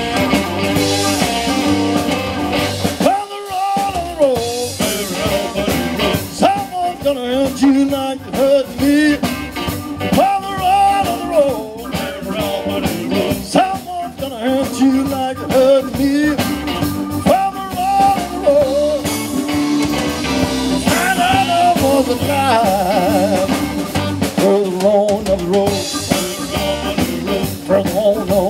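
Live blues-rock band playing: electric guitar, bass guitar, drum kit and keyboard, with a melody line bending over a steady beat.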